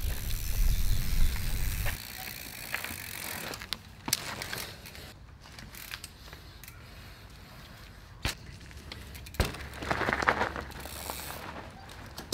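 Mountain bike being ridden: a loud low rumble for the first two seconds, then quieter rolling with a few sharp clicks and knocks and a short rush of noise later on.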